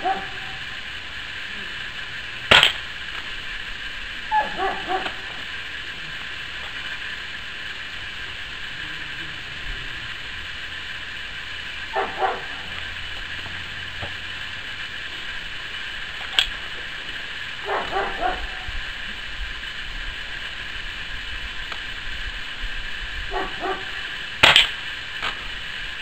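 Three shots from a .22 calibre pellet air rifle, each a sharp crack. They come a few seconds in, about sixteen seconds in and near the end, and the middle one is fainter. Between them a dog barks in short bursts of a few barks at a time.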